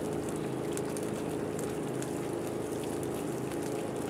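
Steady drone of an engine running, with faint scattered ticks over it.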